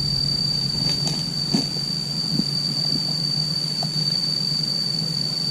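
Steady high-pitched insect drone over a low hum, with a few faint knocks and rustles about one to two and a half seconds in as the man shifts his position.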